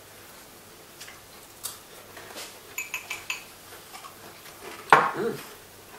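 Cutlery clicking and clinking against a plate, with a few small ringing clinks about three seconds in. About five seconds in comes a short, loud vocal sound.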